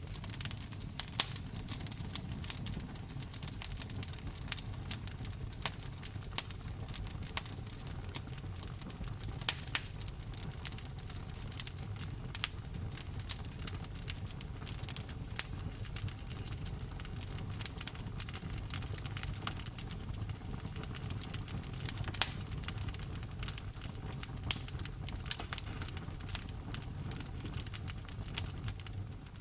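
Wood fire burning in a fireplace, crackling with a constant scatter of small sharp snaps over a low, steady sound of the flames, with a few much louder pops.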